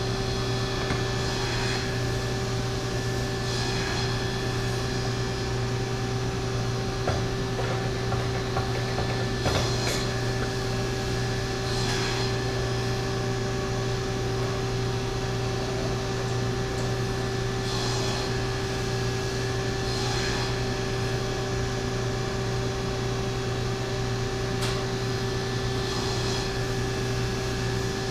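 Steady hum of CNC shop machinery running at an even pitch, with a few faint clicks and knocks from handling tools and parts.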